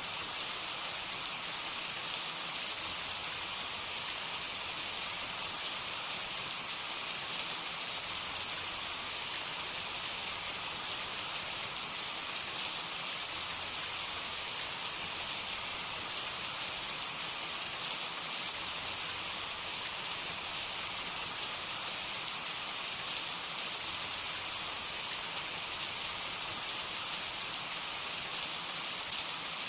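Hot oil sizzling steadily with small scattered crackles as samosas and rolls deep-fry.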